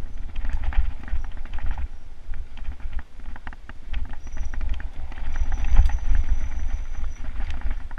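Mountain bike riding fast down dirt singletrack: wind buffeting the handlebar-mounted camera's microphone with a continuous low rumble, and the bike rattling and clattering over the rough trail.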